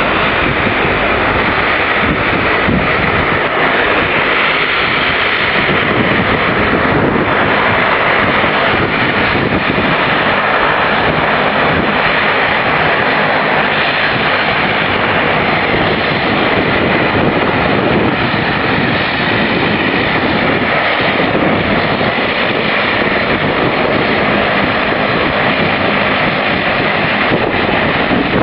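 Twin turboprop engines of a Bombardier Dash 8 Q300 running at taxi power as the airliner taxis, a steady loud engine and propeller noise.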